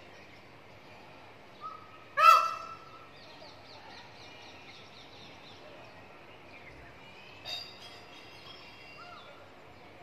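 Indian peafowl calling: one loud call with a strong pitch about two seconds in, then a shorter, fainter call about halfway through the second half.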